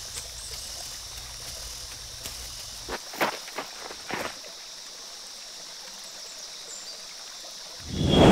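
A steady high chirring of night insects, over which a few sharp knocks and scuffs come between about three and four and a half seconds in. Just before the end, a sudden loud rumble begins.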